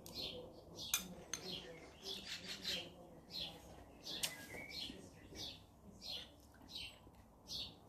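Small birds chirping again and again in short high calls, several a second. A few sharp clicks stand out, about a second in and again around four seconds.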